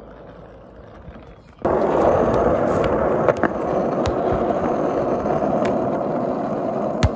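Skateboard wheels rolling over rough asphalt: a loud, steady rumble that starts abruptly about a second and a half in. A few sharp knocks stand out from the rumble.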